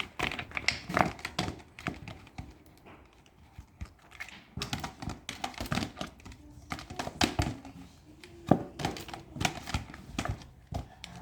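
Plastic PET bottle crinkling and knocking irregularly as a cat bats and grabs at it.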